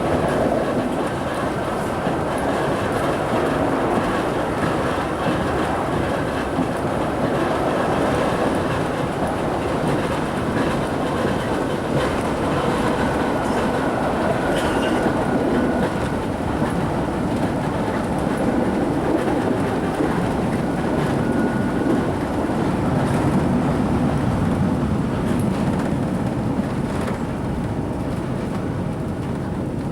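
British Rail Southern Region 2EPB electric multiple unit running, heard on board: a steady rumble of wheels on track with rail-joint clickety-clack. A faint whine from its very old, worn English Electric traction motor comes in for a few seconds about halfway.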